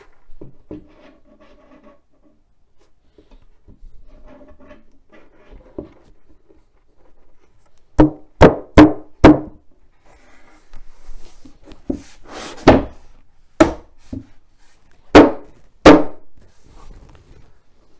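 Sharp knocks of wood on wood as a particleboard shelf panel is knocked down onto its wooden dowels: four quick knocks about eight seconds in, then five more spaced over the following eight seconds. Before them, quieter rubbing and handling of the panels.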